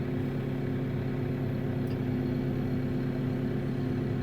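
Steady drone of a vehicle engine running at a constant speed while driving, its low hum unchanging throughout.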